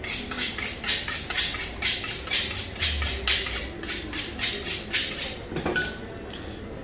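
Fillet knife honed on a sharpening steel: quick, even strokes of blade along rod, about four a second, each a bright metallic swish, stopping about five and a half seconds in.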